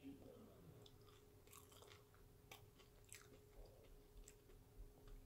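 Faint close-up chewing of deep-fried food with the mouth closed, with a few soft, wet mouth clicks.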